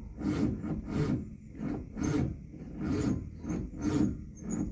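Starter of a heat-soaked 1982 Ford Mustang GT's 5.0 V8 cranking slowly and laboriously, in a regular grinding pulse a little under a second apart, without the engine catching. This is the car's hard-start-when-hot fault.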